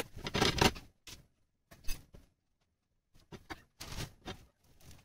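Toasted bread slices being handled and lifted off a flat iron griddle (tawa): short bursts of scraping, rustling and light tapping, the loudest in the first second, with silent gaps between.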